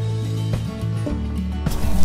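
Background music with held bass notes and a beat about twice a second; it turns louder and fuller near the end.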